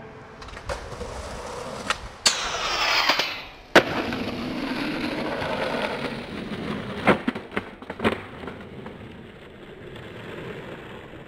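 Skateboard wheels rolling on asphalt, broken by sharp clacks and slaps of the board. The rolling swells louder for about a second and ends in one loud slap about four seconds in, and a quick cluster of clacks comes around seven to eight seconds.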